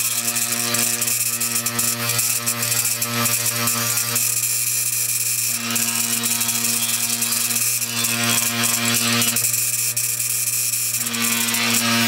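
Dayton quarter-horsepower electric motor driving a 3M abrasive wheel on a motor arbor, grinding rust off steel: a steady motor hum under a scratchy grinding hiss that changes every few seconds as the work is pressed on and eased off. The wheel's large rotating mass has it running rather out of balance, and the audio plays sped up.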